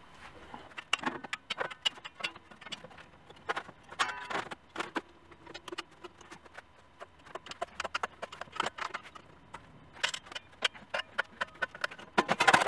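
Irregular metallic clanks and clicks as a sheet of 18-gauge 304 stainless steel is bent in small increments around a homemade cone-rolling tool and its clamp handles are shifted. Now and then the sheet rings briefly after a knock.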